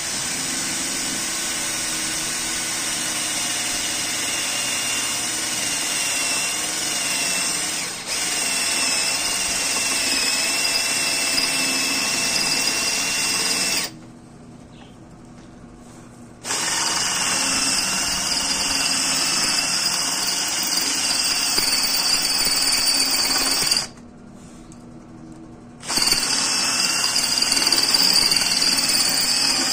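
WAP K21 21 V cordless drill-driver running under load, drilling a hole into a steel piece held in a vise. The motor runs steadily, stops twice for about two seconds (about fourteen seconds in and again near the end), and starts up again each time.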